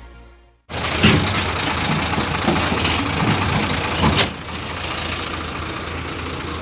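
Background music fades out, then the engine of a heavy machine runs steadily, with two short clanks, one about a second in and one around four seconds in.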